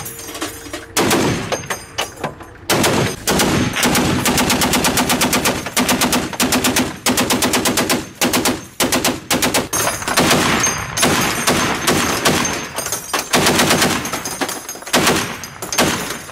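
Truck-mounted heavy machine gun firing in several bursts of rapid, evenly spaced shots, the longest lasting about three seconds.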